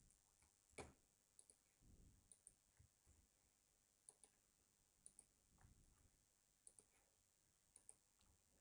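Faint computer mouse clicks over near silence, mostly in quick pairs of press and release every second or so, with one soft thump a little under a second in.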